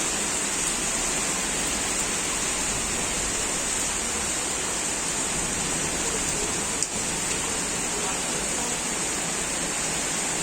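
Heavy rain pouring down: a steady, unbroken hiss.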